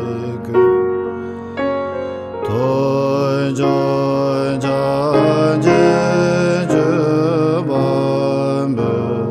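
Tibetan Buddhist chant sung by a male voice over sustained synthesizer chords, with a fuller, deeper chord coming in about two and a half seconds in.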